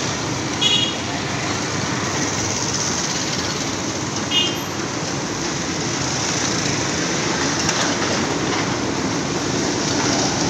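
Steady sizzling of potato fries deep-frying in hot oil in large woks over gas burners. Two short high-pitched sounds cut in, one about a second in and one about four seconds in.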